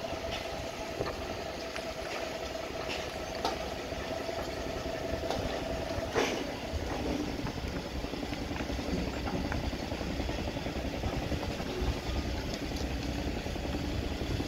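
Construction machinery engine running steadily with a low rumble, its note dropping a little after about seven seconds. A few sharp metal clanks break in, the clearest about six seconds in.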